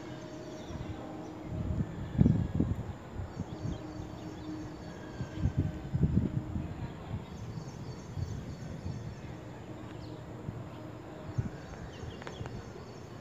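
Outdoor ambience: a steady hiss with irregular low rumbles of wind buffeting the microphone, strongest about two seconds in and again around six seconds, and faint high chirps in the background.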